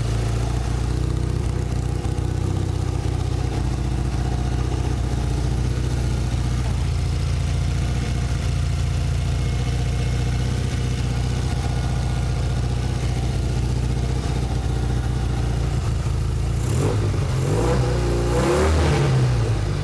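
A 1972 Norton's parallel-twin engine runs at a steady idle. Near the end the throttle is blipped and the revs rise and fall several times.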